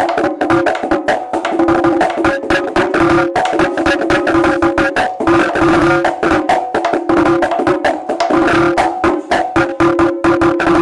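Tambora drum with newly mounted skins played with a stick in a fast, steady rhythm: sharp stick clicks over the drum head's steady ringing pitch.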